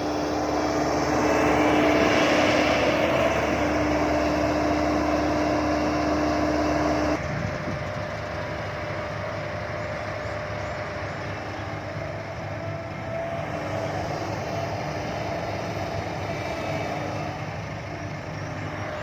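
Heavy diesel engine running steadily, with a held tone over a low drone. About seven seconds in it drops suddenly to a quieter, lower steady running.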